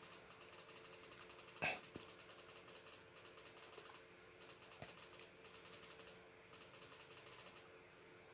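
Faint rapid ticking, about eight ticks a second, in runs broken by short gaps, over a faint steady tone. A single knock about one and a half seconds in.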